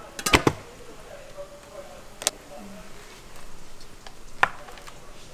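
Sharp clanks and knocks of kitchen ware as steamed rice is handled between a large electric rice cooker and a steel mixing bowl: a quick cluster of clanks just after the start, then single knocks about two and about four and a half seconds in.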